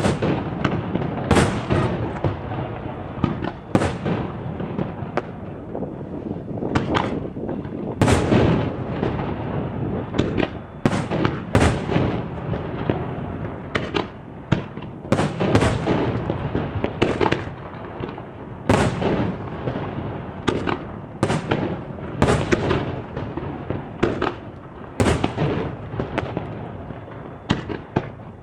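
Fireworks display in a dense barrage: aerial shells bursting one after another, about one or two booms a second, over continuous crackling.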